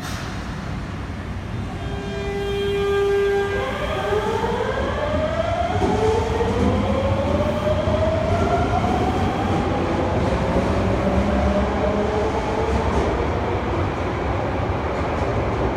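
Osaka Metro 66 series subway train pulling away, its inverter-driven traction motors whining. A steady tone is held for a couple of seconds, then the whine rises in pitch in a series of upward sweeps as the train gathers speed, over a steady rumble of wheels on rail.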